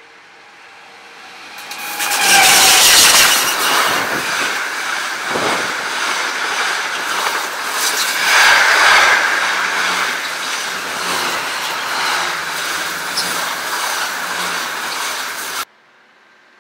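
An SBB electric locomotive hauling an intermodal freight train of road trailers on wagons passes close by. It comes up as a swelling rush, then gives way to the steady rumble and rattle of the wagons' wheels on the rails. The sound cuts off suddenly near the end.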